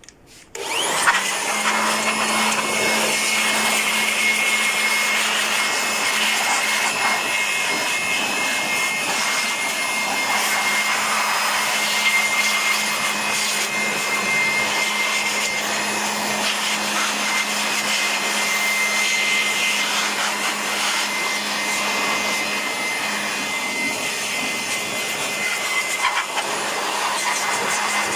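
Handheld electric blower starting about a second in and then running steadily, with a steady motor hum and a thin high whine, blowing water out of a freshly washed engine bay.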